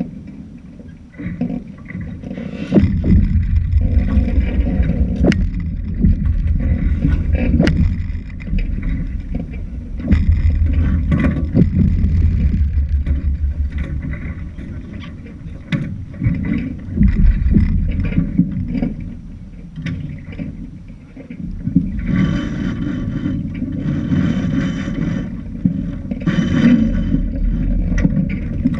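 Boat moving through water, with water splashing and wind rumbling on the microphone in gusts.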